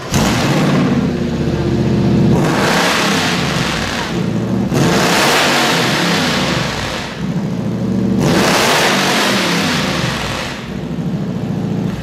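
Supercharged engine with open zoomie exhaust headers catching at once and running hard, then revved three times for about two seconds each and settling back between revs, before dropping off near the end.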